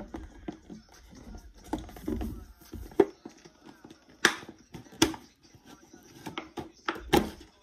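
A box being handled and opened: rubbing and handling noise, then a few sharp knocks and clacks from the box and what is inside it, the loudest about three seconds in and others spread through the rest.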